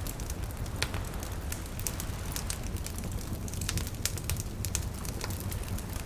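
Wood campfire crackling with frequent sharp pops and snaps, over a steady low wash of gentle lapping water.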